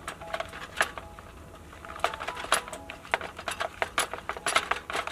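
Hands mixing spiced fish pieces in a plastic bowl: irregular soft clicks, taps and squelches of the wet fish against the bowl.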